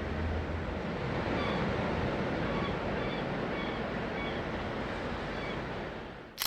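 Atlantic Ocean surf washing steadily, with a bird's faint short chirps repeating about twice a second through the middle, and a sharp click at the very end.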